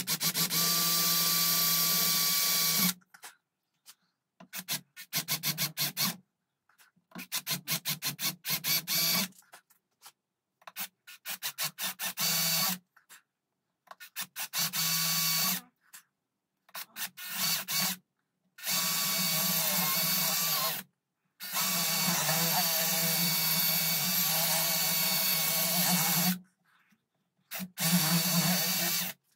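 Makita 18 V cordless drill drilling into a wooden gunstock, its motor whining in long runs and in many short trigger pulses.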